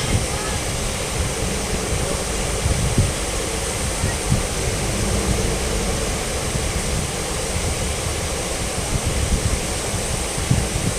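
Steady rushing and splashing of a large show fountain's water jets, with wind buffeting the microphone in uneven low thumps.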